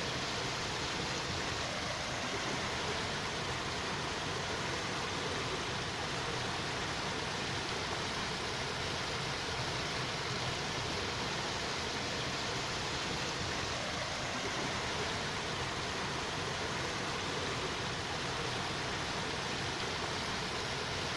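A steady, even hiss that does not change, like rushing noise, with no distinct events in it.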